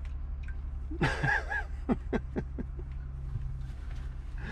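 Steady low hum of a vehicle's engine heard inside the cabin. About a second in a brief voice sound, then a few light knocks and clicks.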